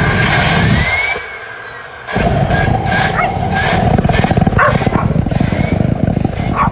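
Loud car engine running with a dense, rapidly pulsing exhaust rumble. It drops away about a second in and comes back hard about two seconds in.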